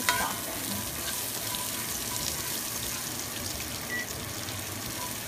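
Green beans frying in oil in a cast-iron skillet: a steady sizzle. There is one short knock of the stirring utensil right at the start.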